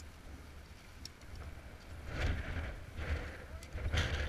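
Wind buffeting the microphone as a steady low rumble, with bursts of rustling and light clicks from rope and climbing hardware being handled, about two seconds in and again near the end.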